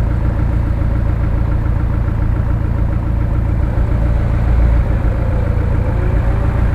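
Off-road SUV's engine running steadily at low revs, its pitch wavering slightly.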